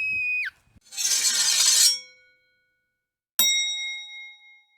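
Edited sound effects: a held whistle-like tone that slides down and cuts off, a short sparkling shimmer, then a single bell-like ding that rings out.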